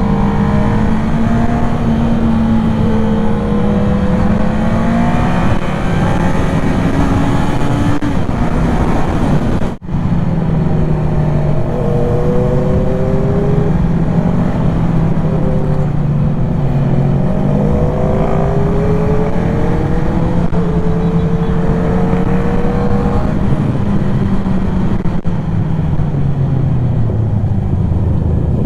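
Motorcycle engine running hard under way, its pitch climbing through each gear and dropping at each shift, several times over, over a steady rush of noise. The sound cuts out briefly about ten seconds in.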